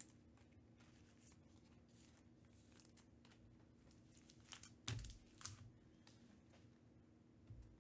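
Faint crinkling and rustling of plastic as trading cards and their packaging are handled, a few brief crinkles about halfway through, over a faint low hum.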